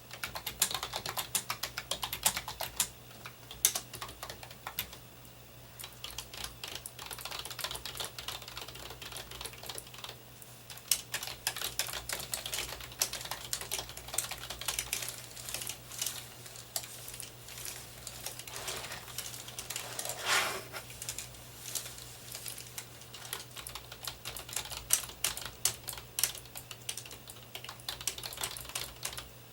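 Computer keyboard typed close to the microphone: quick, irregular runs of key clicks with brief pauses, over a faint low hum.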